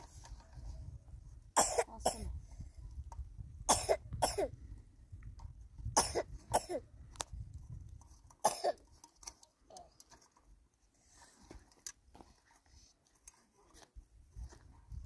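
A person coughing in short bouts, mostly pairs of harsh coughs, about every two seconds through the first half, over a low rumble; after that only faint sounds.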